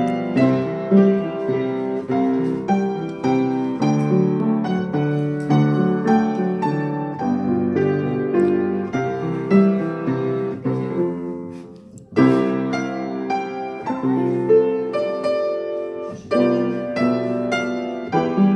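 Background piano music, a steady run of notes and chords. It dies away about eleven seconds in, and a new phrase starts a moment later.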